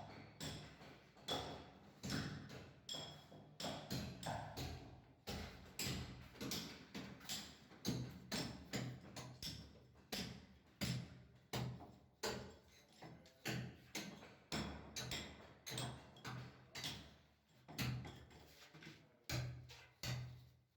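Background music with a steady percussive beat, about two sharp strokes a second over a low bass line.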